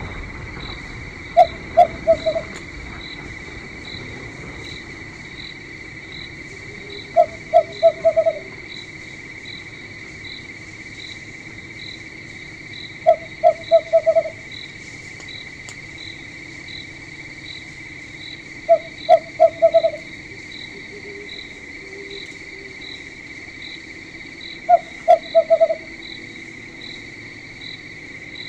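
Night insects, crickets, trilling steadily, with a higher pulsing chirp. About every six seconds an animal gives a call of four or five quick low notes, the last ones running together.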